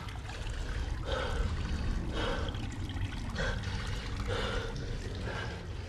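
Water running from a tap into a washbasin, with a man breathing hard, about one breath a second, over a low steady rumble.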